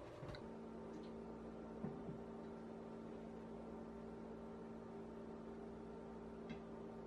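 A steady electrical hum, with a few faint clicks and taps as a metal cake tin is set down on a metal baking tray.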